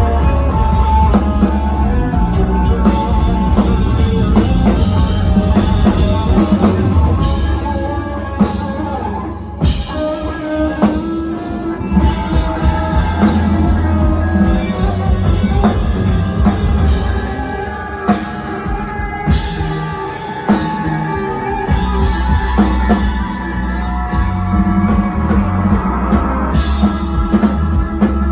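Live rock band playing loud: drum kit, guitars and bass guitar. The low bass end drops out briefly about ten seconds in and again about two-thirds of the way through, then comes back in.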